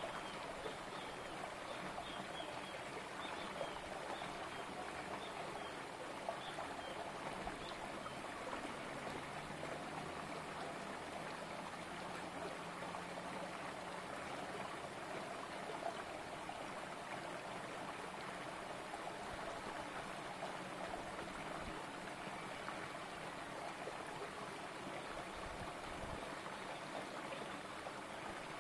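Small rocky creek running steadily, water trickling and splashing between boulders into a pool.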